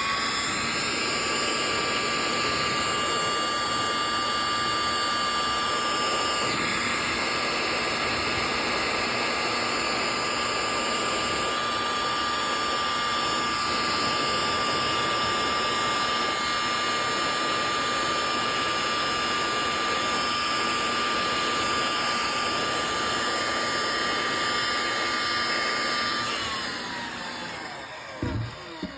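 Heat gun blowing steadily with a fan whine, heat-shrinking adhesive-lined tubing over plier handles. Near the end it is switched off and the whine falls as the fan spins down, followed by a couple of knocks.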